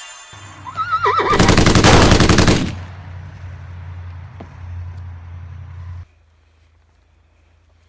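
Horse whinny: a wavering high call, then a loud, rapidly pulsing burst lasting about a second and a half, over a low hum that cuts off abruptly about six seconds in.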